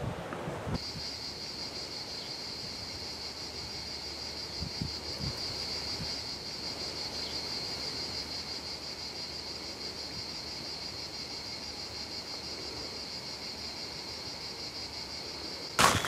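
Cicadas droning steadily in a continuous high-pitched chorus, starting abruptly about a second in and cut off near the end.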